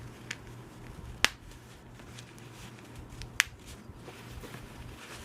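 Plastic snaps on a cloth diaper being pressed shut: a few sharp clicks, a faint one and then two loud ones about two seconds apart, with quiet fabric handling in between.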